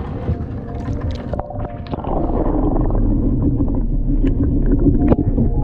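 A camera dipped into the sea beside a wooden boat about two seconds in: splashing water and a few knocks above the surface give way to a muffled, low underwater rushing.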